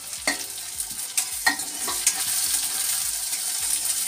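Chopped onions sizzling in hot oil in a metal kadhai, with a metal spatula clinking and scraping against the pan a few times as they are stirred.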